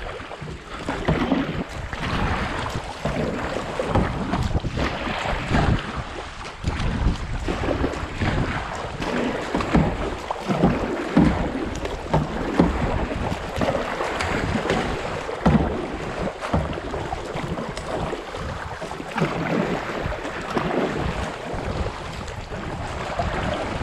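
Flood-swollen creek water rushing and splashing around a kayak, with wind buffeting the microphone in an uneven low rumble.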